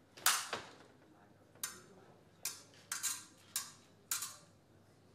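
Steel fencing sabre blades clashing: a quick series of about eight sharp metallic clanks, irregularly spaced, the loudest just after the start.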